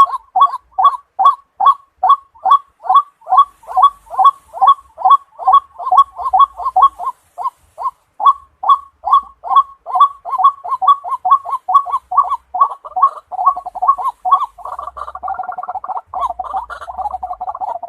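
White-breasted waterhen calling: a monotonous, loud, repeated croaking note, about three a second, that breaks into a denser, overlapping chatter near the end.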